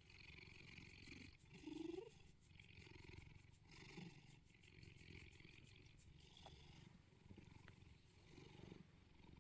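Bengal cat purring softly while being stroked, the purr swelling and fading about once a second. A short rising note comes about two seconds in.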